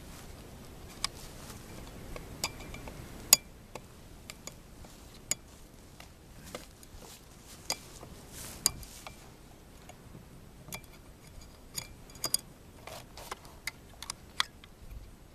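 Metallic clicks and clinks from clearing a jammed Charter Arms Explorer II .22 pistol: a stuck spent case is being pried out of the chamber after a failure to eject. The clicks come irregularly, the sharpest a little over 3 seconds in and near 9 seconds.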